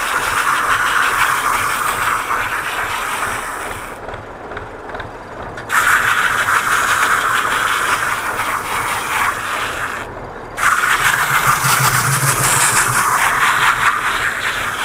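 Tractor-mounted round-bale wrapper at work: green stretch film being pulled off the pre-stretch roll onto the turning bale with a steady hiss, over a running tractor engine. The hiss drops away suddenly twice, about four seconds in and about ten seconds in, then comes back.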